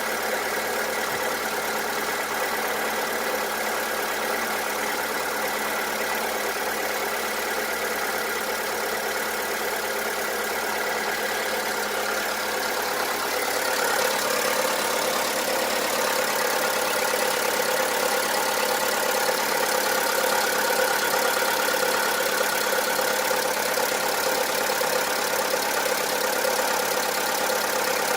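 VW Polo 1.4 16V (BUD) four-cylinder petrol engine idling with a diesel-like knock, which the owner takes for piston slap: worn pistons rocking and their skirts hitting the cylinder walls. It gets a little louder about halfway through.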